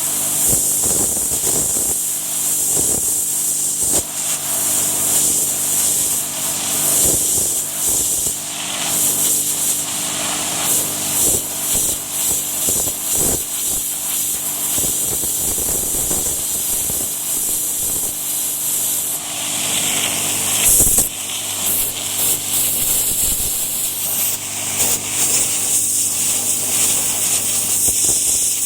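Landa 3000 psi pressure washer running, its high-pressure water jet spraying with a loud, steady hiss over the machine's steady hum. There is one brief louder spurt about two-thirds of the way through.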